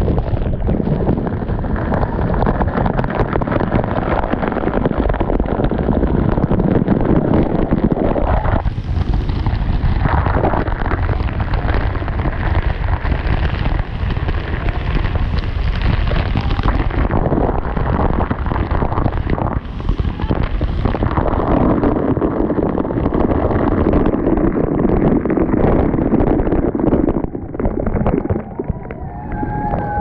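Waterfall water pouring and spraying straight onto the camera's microphone: a loud, continuous rush peppered with the hits of drops.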